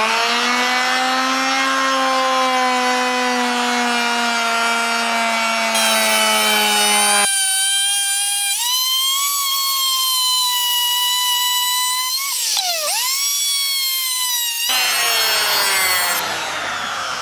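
Electric plunge router running at speed and cutting into an MDF board, a loud steady whine. Its pitch sags slowly while it cuts, then dips sharply and recovers about 13 seconds in as the bit bogs under load.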